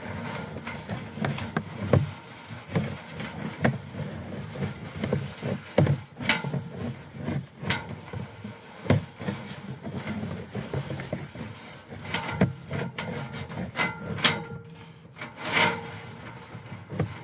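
Pipe-inspection camera push cable being fed off its reel into the pipe: irregular rubbing and scraping with scattered knocks and clicks.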